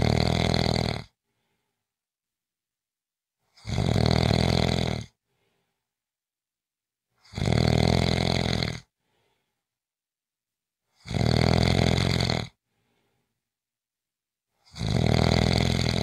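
A person snoring steadily: loud snores about every three and a half to four seconds, each lasting about a second and a half, with a faint breath after each and silence between.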